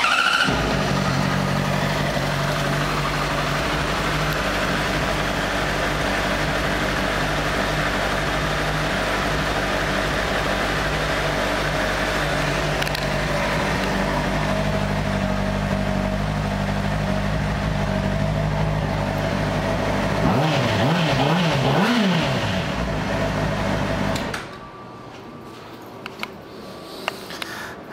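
2006 Honda CBR600RR's 600cc inline-four engine catching and then idling steadily. Around twenty seconds in, the throttle is blipped two or three times, and a couple of seconds later the engine is shut off.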